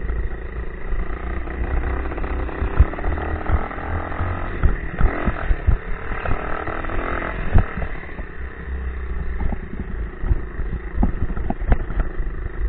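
90cc Baja dirt bike engine running as the bike is ridden. Frequent sharp knocks and rattles come from the bike as it goes.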